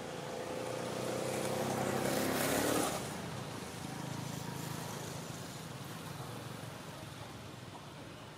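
A motor vehicle engine rising in pitch and getting louder for about three seconds, then dropping away suddenly, followed by a lower, steady engine hum.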